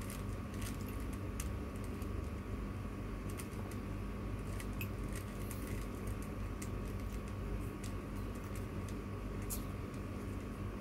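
Plastic 3x3 Rubik's cube being turned by hand, its layers giving scattered light clicks at an uneven pace, over a steady hum.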